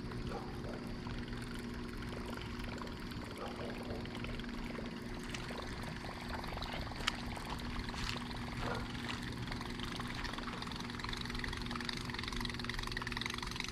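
Buzzbait retrieved across the pond surface, its spinning blade churning and gurgling the water in a steady buzz.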